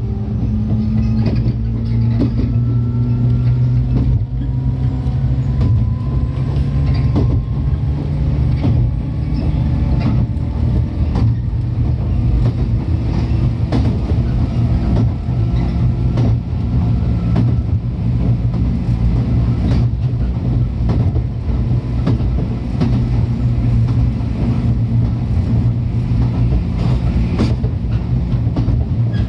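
103 series electric train running, heard from inside the car: a steady low rumble with motor and gear whine that rises in pitch over the first several seconds as the train gathers speed, then holds steady, with wheels clicking over rail joints.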